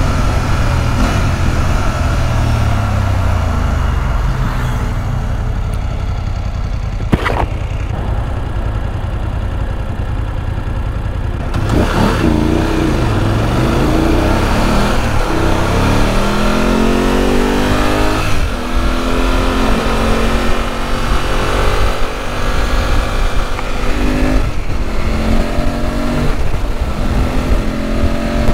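BMW motorcycle at road speed over wind rush, its engine note falling as it slows in the first few seconds. From a little before halfway it accelerates, the engine pitch climbing and dropping back through several upshifts.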